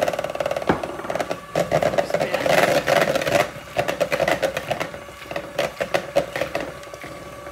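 Electric hand mixer running, its beaters whirring and clicking against the mixing bowl as it beats eggs and melted butter together. Louder for the first three seconds or so, then quieter with scattered clicks.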